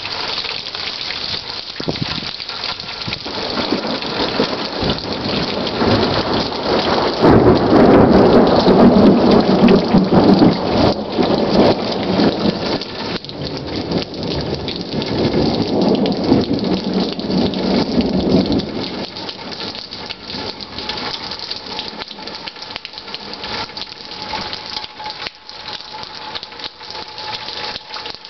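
Steady rain hissing down, with a long roll of thunder coming in about a quarter of the way through. The thunder rumbles loudest at first, goes on for about ten seconds and then dies away, leaving the rain.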